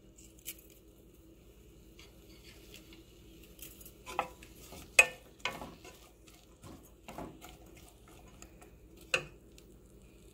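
Wooden spatula stirring diced onion and tomato in a pan, with about six scattered knocks and scrapes of the spatula against the pan, the loudest about halfway through.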